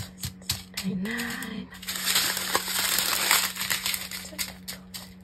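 Clear plastic packaging crinkling and rustling as a strip of small sealed bags of diamond painting drills is handled and shifted, with scattered small clicks and a denser stretch of crinkling about two to three and a half seconds in. A brief murmur of voice comes about a second in, over a steady low hum.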